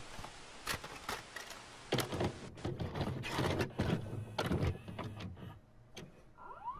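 Videocassette recorder mechanism loading and starting a tape: a run of clicks and clunks, over a hiss for the first couple of seconds, with a short rising whine near the end.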